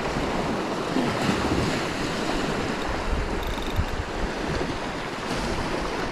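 Small surf waves breaking and washing up the beach, with wind buffeting the microphone.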